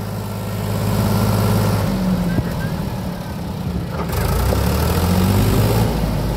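Powertrac tractor's diesel engine running under load as it hauls a loaded trolley through mud. Its note shifts about two seconds in and again near four seconds as the revs change.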